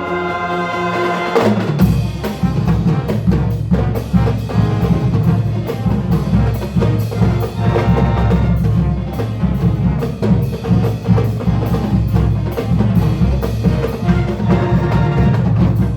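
Marching band music: a held brass chord breaks off about a second and a half in, and the percussion section takes over with fast, dense drumming, heavy on the low drums.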